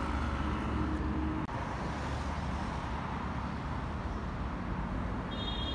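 Steady city street traffic noise: a low rumble of passing cars, broken off for an instant about a second and a half in, with a short high tone near the end.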